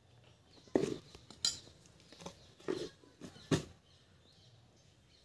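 Four sharp knocks and clinks of a plastic container being handled, spaced unevenly over the first three and a half seconds, with a couple of fainter taps between them.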